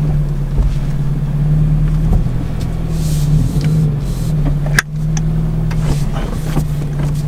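Subaru BRZ's FA20 flat-four idling steadily on a cold start through a freshly fitted Corsa cat-back exhaust, with one sharp click about five seconds in.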